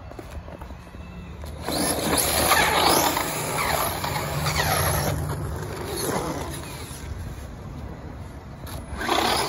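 Kyosho Monster Tracker 2.0 RC monster truck's brushless motor whining, its pitch rising and falling repeatedly as it is throttled, together with tyre noise on dirt and pavement. It starts suddenly about two seconds in, eases off after about five seconds, and surges again near the end.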